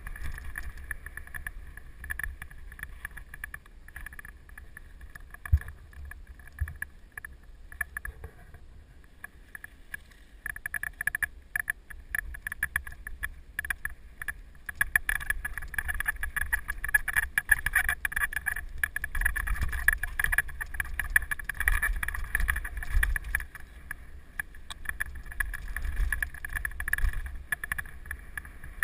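Mountain bike riding a rough dirt trail, heard from a camera mounted on the bike: a steady rumble of wind on the microphone under a constant rattling and clattering of the bike and camera mount over bumps, busier from about halfway in.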